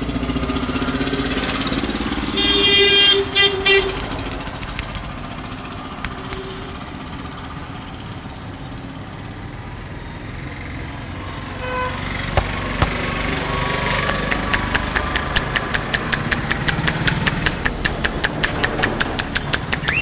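Street traffic with a vehicle horn sounding for about a second, a couple of seconds in. From about fourteen seconds in, fast, even slaps, about five a second: a barber's hands tapping and chopping on a customer's head during a head massage.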